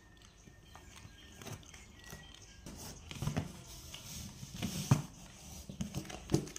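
Soft thumps and rustling as a foam play mat is lifted and let fall. Three thumps stand out, the loudest about five seconds in.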